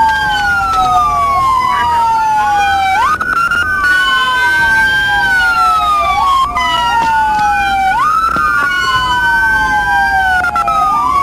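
Two or more police car sirens wailing at once, out of step with each other, each slowly rising and falling in pitch every few seconds.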